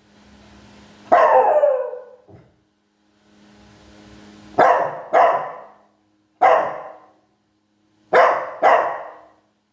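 Small Shih Tzu-type dog barking: six sharp barks spread over the stretch, several coming in quick pairs about half a second apart.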